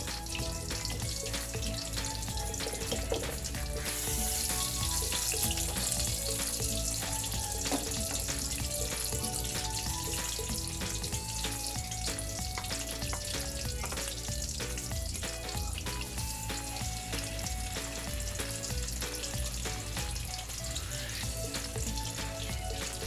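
Chicken burger patties sizzling as they fry in a pan, with steady crackling spatter that brightens about four seconds in. A melody of background music plays alongside.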